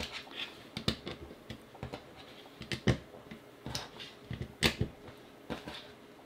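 Small plastic LEGO pieces clicking, in about eight irregular sharp clicks, as they are picked up off a tabletop and snapped onto a brick model.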